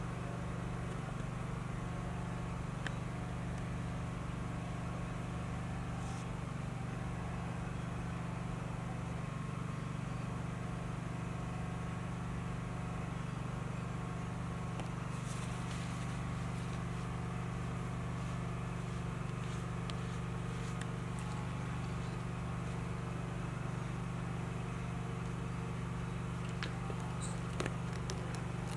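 Steady low machine hum holding several even tones, unchanging throughout, with a few faint light clicks about halfway and near the end.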